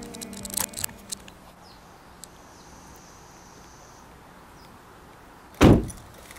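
Quiet outdoor background with a few light clicks in the first second and a faint high buzz in the middle, then a single loud, short thump about five and a half seconds in from the car as the driver gets out.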